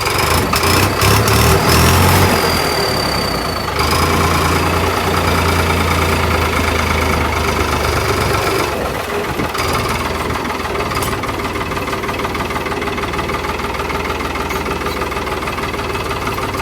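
Farmtrac tractor's diesel engine revved up with an add-on turbo whistle fitted to it, the whistle sounding a high thin note for the first few seconds. The engine stays revved until about eight seconds in, then drops back to a steady idle.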